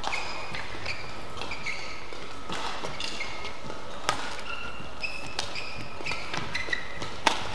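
Badminton shoes squeaking on the court floor in short, high squeaks, with sharp racket hits on the shuttlecock during a rally, the loudest about four seconds in and again near the end.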